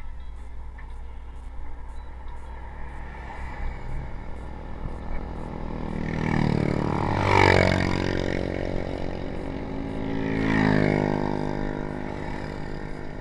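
Two motor vehicles pass close by one after the other, the first about six seconds in and the second about ten seconds in. Each engine swells and shifts in pitch as it approaches and goes by, over a steady low rush of wind.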